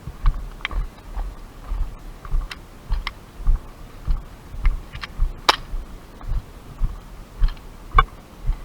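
Footsteps of a player moving on foot, about two a second, with light clicks and rattles of gear at each step. One sharper click comes about five and a half seconds in.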